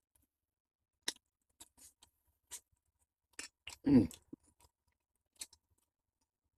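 Eating at close range: scattered soft clicks and smacks of chewing and chopsticks, with one louder mouth sound about four seconds in.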